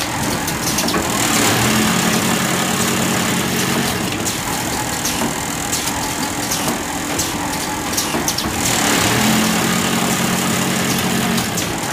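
XTIME can-seaming machine and conveyor of a popcorn cup production line running: steady machine noise with scattered clicks. A low hum swells twice, for about three seconds each time, once shortly after the start and again near the end.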